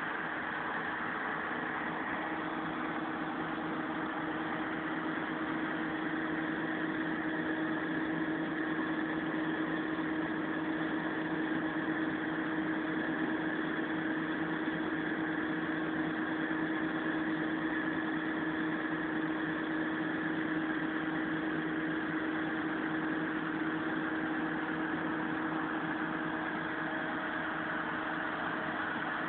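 Kato crane's engine running steadily with a constant hum, heard from inside the operator's cab.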